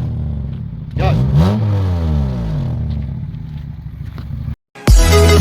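Honda CR-V's 2.4-litre four-cylinder engine blipped once about a second in, its pitch rising quickly and then sinking back to idle over a few seconds. Music starts abruptly near the end, after a brief dropout.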